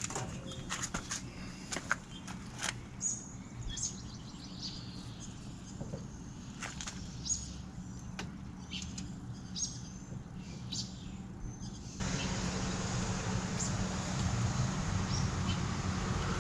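Scattered light clicks and knocks of hand work on a school bus window frame and glass, with birds chirping now and then. About twelve seconds in, a louder steady hiss starts suddenly.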